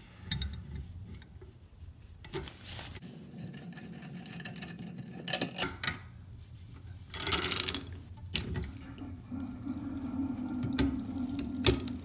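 Hands working a toilet's water supply line loose from the tank: scattered clicks and scrapes of the plastic coupling nut turning on the fill-valve shank, with water noise as leftover tank water starts to come out, and one sharp knock near the end.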